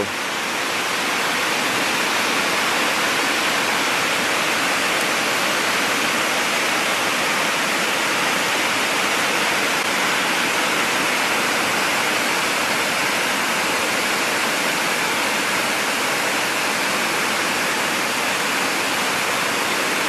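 Waterfall spilling over a broad, stepped rock face: a steady, even noise of falling water. It is running at a weak flow, about as low as it gets after weeks with little rain.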